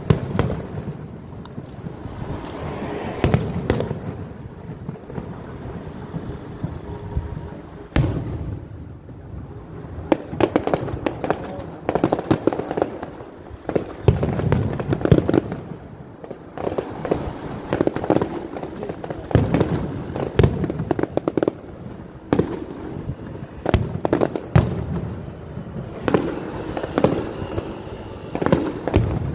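Aerial fireworks show: shells bursting in dense, irregular volleys of sharp bangs and crackles, with a rumble between the clusters.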